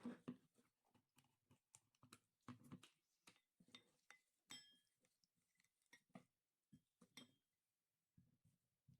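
Near silence with faint, irregular clicks and small ticks, about two or three a second. A few near the middle carry a brief high ring.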